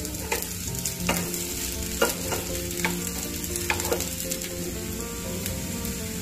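Muthiya shallow-frying in hot oil with sesame seeds in a nonstick pan, sizzling steadily while they crisp on the second side. A spatula and fork turning the pieces knock against the pan about once a second for the first few seconds.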